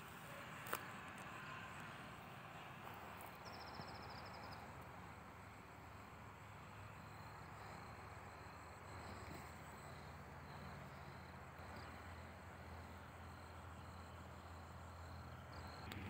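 Faint open-field ambience: a steady low hiss and rumble, with a single sharp click less than a second in and a brief, rapid, high-pitched trill about three and a half seconds in.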